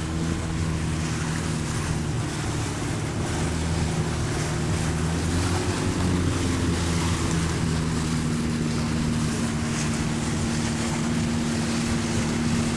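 A wooden river boat's engine runs steadily under way upstream, with the rush of water and wind over it. Its note shifts slightly about seven to eight seconds in.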